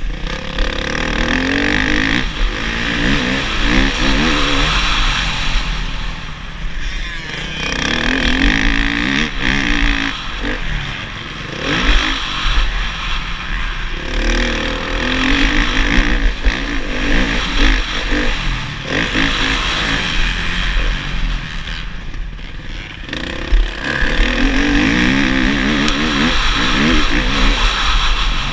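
Motocross bike engine revving hard while being ridden, climbing in pitch under throttle and dropping briefly on the throttle lifts, three times.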